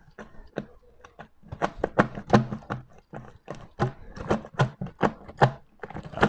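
Stainless-steel sorbetes canister and its wire-mesh beater being churned in crushed ice, knocking and clattering unevenly. The knocks are faint at first and come several a second, louder, from about a second and a half in.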